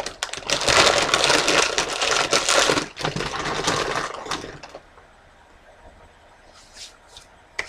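Fire-roasted veggie tortilla chips being crunched and chewed, a dense crackling full of sharp cracks. It dies away after about four and a half seconds, leaving only a few faint clicks.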